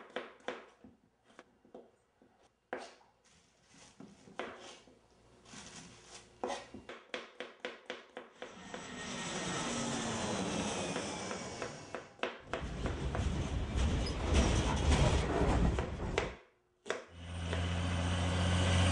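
A run of irregular clicks and taps, then a jet airliner passing low overhead, swelling and fading with a falling whine. Loud rumbling road traffic follows, and then a car going past with a steady low hum.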